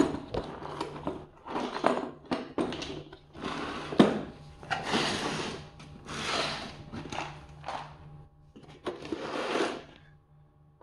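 Plastic toolboxes being handled and a lid opened: a series of short plastic clatters and clicks, with tools shifting and rattling inside and a sharp click about four seconds in.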